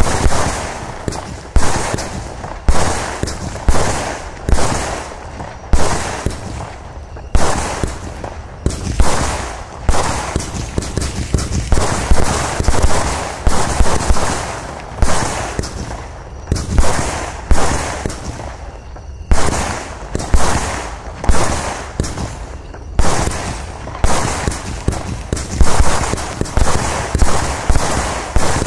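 A Startrade Beatbox 2 firework battery with 16 mm tubes firing shot after shot, about one or two sharp reports a second. Each report is followed by a fading hiss and crackle.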